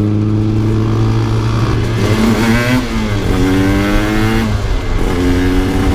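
Aprilia RS 125 single-cylinder engine heard from the rider's seat with wind noise. It runs steadily at first, then revs up in three rising runs with short drops between them, as the bike accelerates up through the gears.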